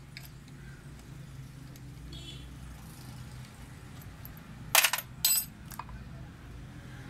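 Two sharp, ringing metal clinks about half a second apart, from a steel hex key and the metal top cover of a diesel injection pump being handled as the cover screws come out and the cover is lifted.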